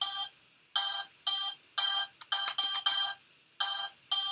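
Simon Micro handheld memory game beeping out a sequence of short electronic tones of different pitches, about eight in all, each cut off sharply, through its small, low-quality speaker.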